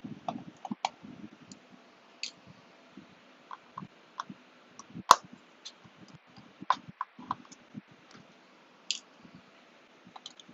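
Irregular small clicks and taps from hand work on a laptop: small tools, screws and parts being handled on a desk. The loudest click comes about five seconds in, over the faint steady hiss of room fans.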